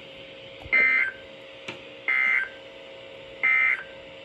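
Three short bursts of EAS/SAME digital data tones from a NOAA Weather Radio broadcast: the end-of-message code that closes the weekly test, each burst about a third of a second of warbling high tones, with a gap of about a second between them and a faint steady hum underneath.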